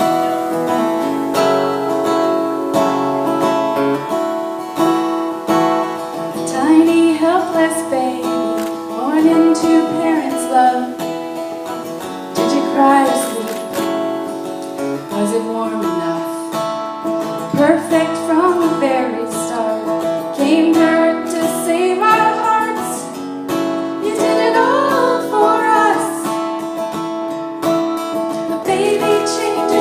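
Acoustic guitar accompaniment with a woman singing a slow country song; the voice comes in about six seconds in.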